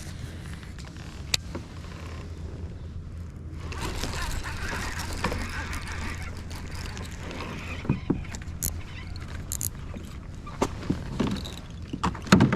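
Activity on a fishing kayak on the water: a steady low hum, with a stretch of splashing, rushing noise in the middle and scattered light knocks and clicks.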